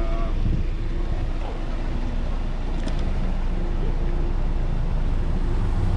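Steady low rumble of idling vehicle engines and street noise, with wind on the microphone; a deeper engine hum comes in near the end.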